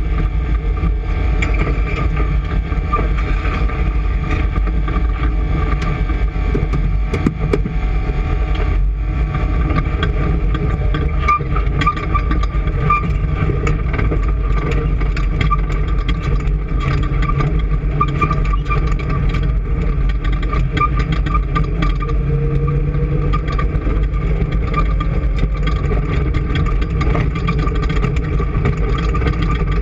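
An engine running steadily and continuously, with a constant low rumble and a thin steady whine.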